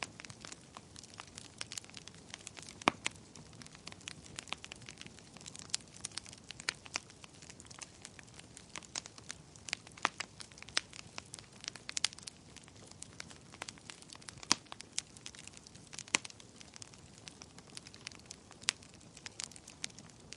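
Wood fire in a fireplace crackling, with irregular sharp pops, a few louder ones about three seconds in and again past the middle, over a soft hiss.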